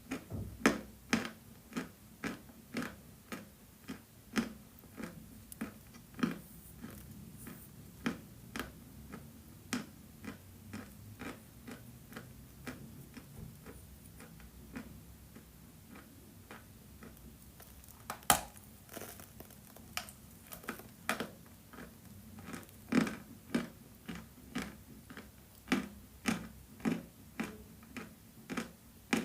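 Crunching of edible chalk being chewed, a steady run of sharp crisp crunches about two a second, with one louder snap about 18 seconds in.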